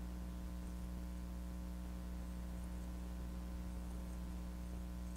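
Steady low electrical hum, a mains hum with several fixed tones, unchanging throughout.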